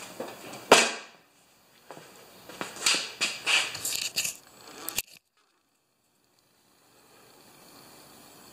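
Handling noises at a small Briggs & Stratton mower engine that is not running: a sharp click about a second in, then a quick run of short rasps and clicks, and another click before the sound cuts out.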